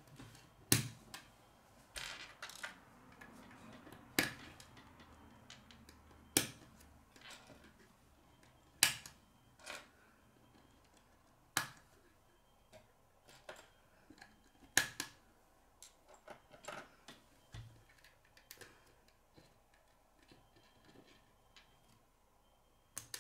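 Plastic K'nex pieces clicking as they are snapped together and handled on a wooden table: irregular sharp clicks and taps, one every second or two.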